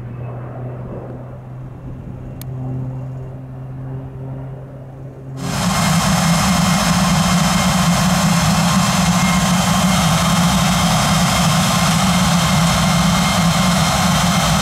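A single-engine propeller plane flying overhead with a steady low drone. About five seconds in, an abrupt cut brings in a Pilatus PC-24 business jet's twin Williams FJ44 turbofans running close by as it taxis, a loud steady whine and rush.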